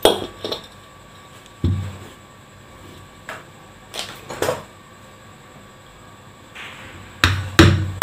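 Scattered knocks and clunks of a ceiling fan's cast-metal motor body being handled and set down, then near the end three quick hammer taps, the loudest sounds, struck lightly to seat the rotor and its bearing in the housing.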